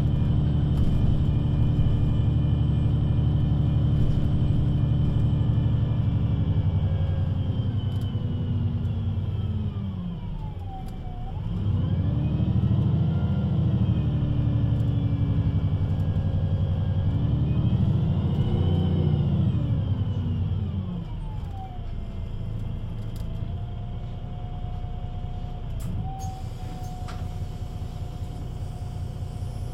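VDL Citea LLE 120 city bus engine and Voith automatic gearbox, heard from inside the rear of the bus. It runs steadily under load, then drops in pitch and quietens as the bus slows about ten seconds in. It rises and falls twice in pitch as the bus pulls away and moves through the gears, then settles after about twenty seconds into a quieter steady hum with a whine.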